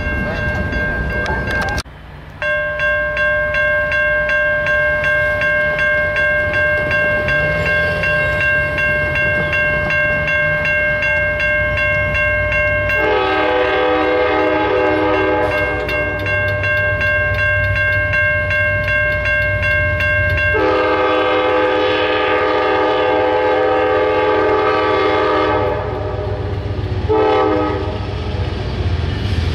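Grade-crossing warning bell ringing in a rapid, even pulse. About halfway in, an approaching Amtrak passenger locomotive sounds its horn for the crossing: a long blast, a second long blast, and a shorter one near the end.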